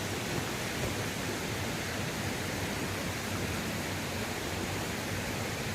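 Waterfall water rushing in a steady, even hiss.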